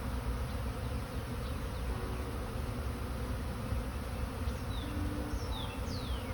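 Honeybees buzzing around a hive of a strong colony, a steady dense hum, with a single bee's tone passing close now and then.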